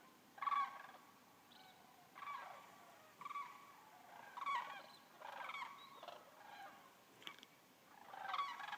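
Waterfowl calling: a string of short, faint calls about one a second.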